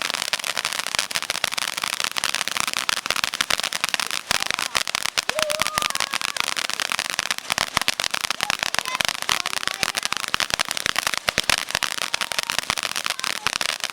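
Snow Cone ground fountain firework spraying sparks with a dense, continuous crackle of many tiny rapid pops.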